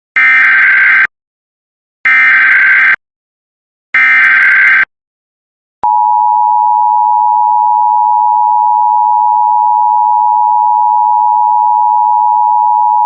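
Emergency Alert System header: three short bursts of SAME digital data tones, about a second each and two seconds apart. About six seconds in, the steady two-tone EAS attention signal begins.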